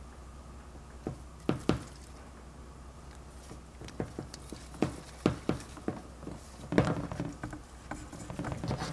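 Scattered sharp clicks and knocks from handling a butane can held in a plastic can-tap valve on a refrigerant charging hose, with a denser cluster of knocks about two-thirds of the way through, over a faint low hum.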